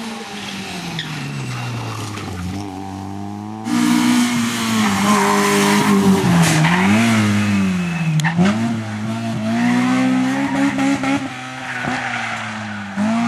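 Rally cars at full effort: first a car's engine note falls steadily as it slows for a bend. About four seconds in it turns abruptly louder as a white Honda Civic hatchback's engine revs hard past, its pitch rising and dipping repeatedly with gear changes and lifts.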